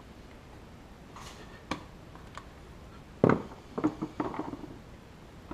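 Handling noises from refitting a side-by-side's plastic panels and fasteners: a few light clicks, a sharp knock about three seconds in, then a quick run of small clicks.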